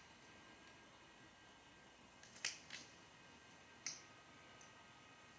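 Near silence with a few short, sharp clicks, two close together about two and a half seconds in and one more about a second later, as small parts are handled.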